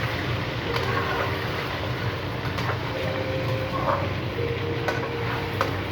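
Chicken pieces frying in hot oil in a karahi, sizzling steadily, with occasional clicks of a spoon stirring against the pan over a low steady hum.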